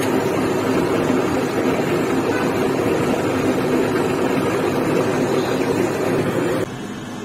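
Lathe running steadily, spinning a steel mandrel while a used connecting rod's eye is held over it by hand and worked on it. Near the end the loud running drops suddenly to a quieter steady hum.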